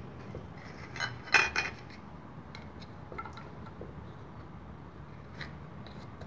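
Kitchen dishes and utensils clattering: a short knock about a second in, then a louder clink and clatter of dishware, followed by a few light clicks.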